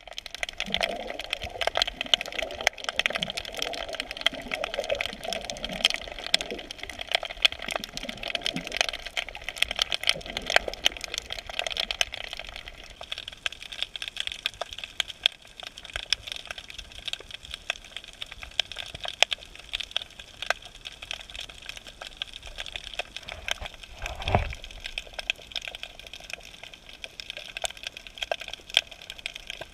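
Constant underwater crackling of snapping shrimp on a rocky reef, heard through the camera's housing. A low wavering sound underlies the first dozen seconds, and a single dull thump comes about 24 seconds in.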